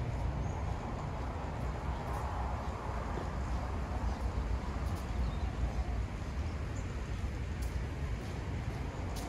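Steady low outdoor rumble with a few faint, sharp ticks scattered through it.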